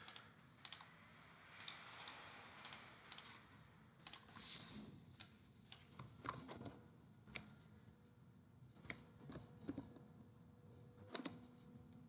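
Faint computer keyboard typing and mouse clicks: scattered, irregular single clicks throughout.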